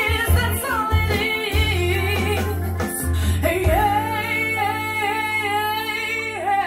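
Soul song with a female lead vocal and a heavy bass line, played back loud through Canton Reference 1.2 DC floorstanding loudspeakers and a Canton subwoofer. A little over halfway through, the bass drops away and the singer holds one long, wavering note.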